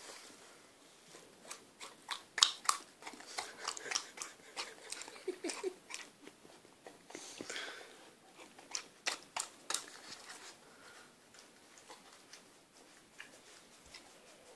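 Akita puppy chewing and smacking at a sticky chocolate eclair toffee that gums up her teeth: a run of irregular wet jaw clicks and smacks, densest in the first ten seconds and thinning out near the end.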